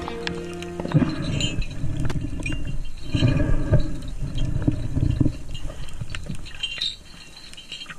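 Underwater sound picked up through an action-camera housing: a low, muffled rushing and sloshing of water that swells and fades, with scattered sharp clicks and crackles. Background music stops about a second in.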